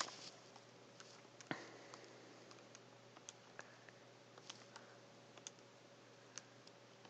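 Faint, scattered key clicks, about a dozen spread unevenly over several seconds, as figures are keyed in for a calculation, over a faint steady room hum.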